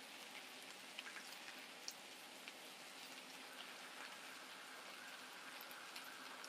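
Faint sizzling and crackling of salmon and shrimp frying, with scattered small pops. A faint steady high tone joins about four seconds in.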